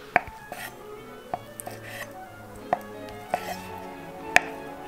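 Chef's knife slicing through a peeled hard-boiled egg and knocking on a wooden cutting board: about five sharp, irregularly spaced knocks, the loudest near the end.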